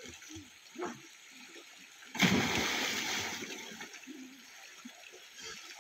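A child jumping into a river pool: one loud splash about two seconds in, then the water churning and settling.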